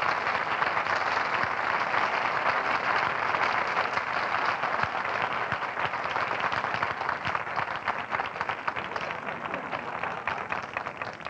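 Studio audience applauding, dense and steady clapping that fades away near the end.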